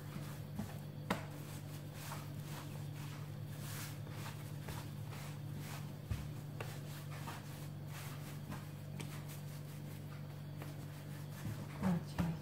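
Hands rolling yeast dough into ropes on a floured countertop: soft, repeated rubbing strokes over a steady low hum.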